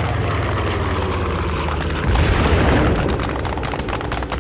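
Low cinematic rumble and drone with a deep boom about two seconds in that swells and dies away over the next second.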